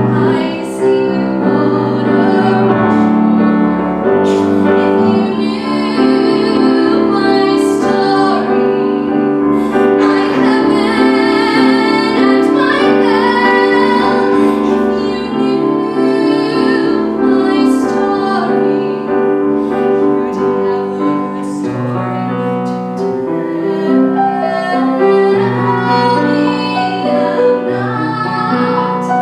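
A woman singing a musical-theatre song with live grand piano accompaniment, her held notes sung with vibrato.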